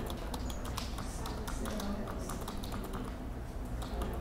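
Computer keyboard typing: an irregular run of quick clicks over a low steady hum.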